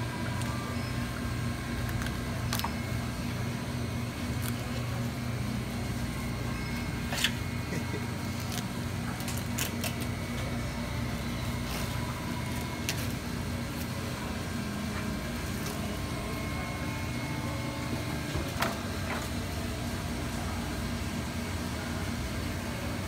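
Steady low mechanical hum with a few sharp clicks and taps scattered through it, from a knife and gloved hands filleting a whole salmon on a cutting board.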